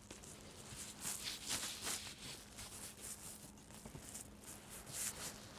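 Faint, irregular scraping and rustling of a jacket rubbing against a clip-on microphone.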